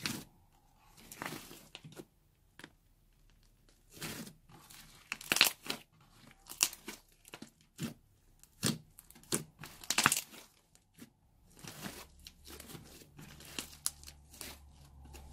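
Pink fluffy slime being pressed, folded and stretched by hand, giving irregular sticky crackles and tearing sounds as it is pulled apart, with a quicker run of small crackles near the end.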